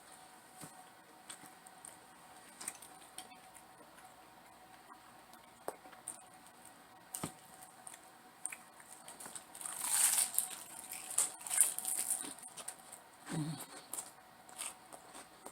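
Close-up eating sounds: small wet mouth clicks and chewing, with a louder, crunchy, rustling stretch about ten to twelve seconds in and a brief low hum a little after.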